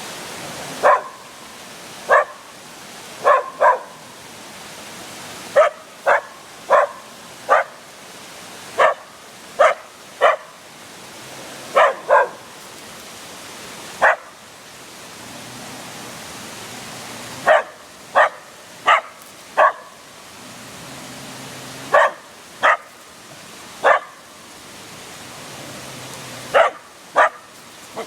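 A dog barking in short, sharp single barks, often in quick pairs or threes, with pauses of a second or more between bouts, over a steady rushing background noise.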